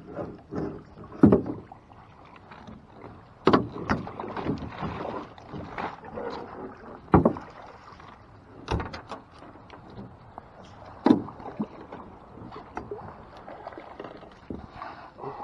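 Irregular knocks and thumps against an aluminum jon boat's hull and gear while a landed bowfin and the landing net are handled in the boat: about half a dozen sharp knocks a second or two apart, with rustling in between.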